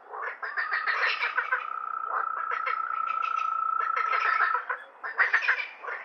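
Frogs croaking in fast rattling pulses, several calls overlapping, over a steady high-pitched tone. The calls drop away briefly about five seconds in, then start again.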